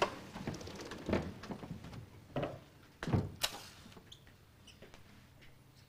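Soft knocks, rustles and scrapes of people handling things at a table while lighting candles on an Advent wreath, the loudest a short sharp scrape about three and a half seconds in, followed by a few faint ticks.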